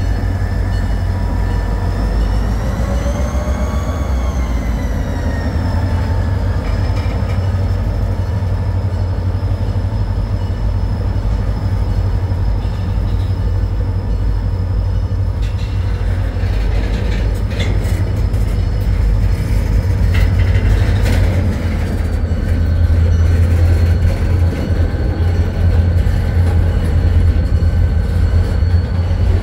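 Freight train rolling through a grade crossing: a steady, loud low rumble of wheels on rail as empty centerbeam flatcars pass, with a thin high squeal that wavers up and down a few seconds in, and a few sharp clanks a little past the middle.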